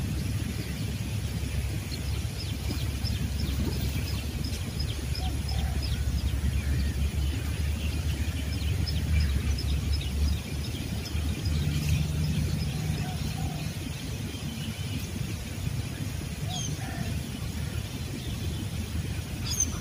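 Outdoor riverbank ambience: a steady low rumble, with a bird's quick runs of high, evenly spaced chirps a few seconds in and again shortly after, and a brief low hum about midway.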